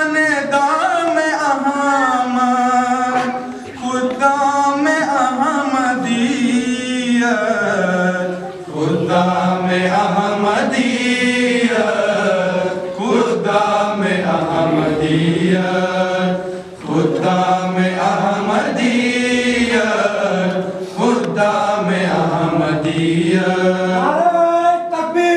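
A group of young men singing an Urdu nazm (tarana) together in unison, unaccompanied, with long held notes.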